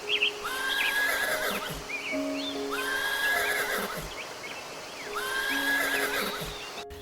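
An animal calling three times, each call about a second long and alike, over background music with a steady beat of held notes.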